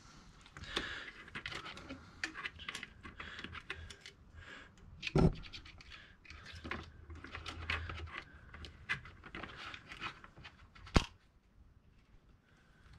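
Packaging being handled and pulled off a new chainsaw: crinkling and scraping with scattered small clicks, and a thump about five seconds in and another about eleven seconds in.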